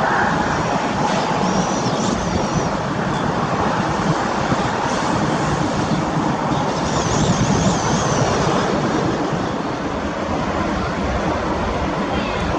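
Steady rumbling background noise with no clear engine tone, and a small bird chirping briefly twice: once a second or two in, and again around seven seconds in.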